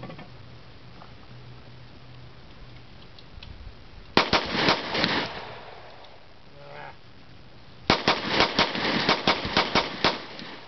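Springfield XD semi-automatic pistol fired rapidly into pond water: a short burst of a few shots about four seconds in, then a faster string of about ten shots near the end, emptying the magazine.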